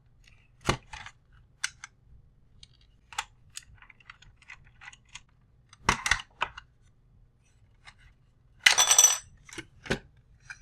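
Small parts of an alloy diecast toy model clicking and clinking as it is taken apart by hand, with a cluster of knocks about six seconds in and a longer scraping rattle near the end.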